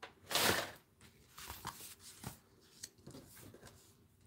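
Paper handling: a brief swish as a sheet of scratch paper is slid off the cutting mat, then faint rustles and light taps of small cardstock hearts being picked up and set down.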